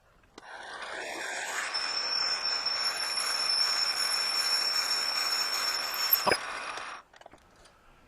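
Metal lathe running while a 13/32-inch twist drill bores into the spinning workpiece: a steady cutting hiss with a thin, high, steady whine. A sharp click comes about six seconds in, and the sound stops about a second later.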